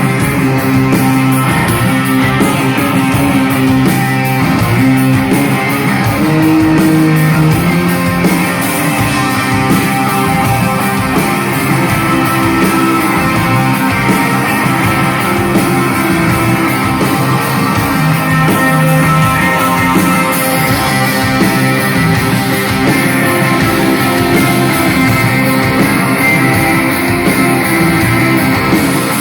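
Rock band playing live, with guitar and a drum kit keeping a steady beat.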